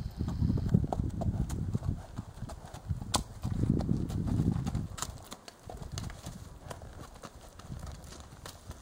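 Hooves of a ridden palomino quarter horse clip-clopping at a walk on dry dirt while it steps over logs, with a few sharp knocks. Stretches of low rumbling noise come in the first two seconds and again around the middle.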